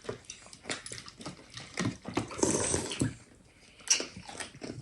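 Eating from bowls of fruit in coconut water: scattered sharp clicks and taps of spoons against the bowls, with a wet liquid sound about two and a half seconds in.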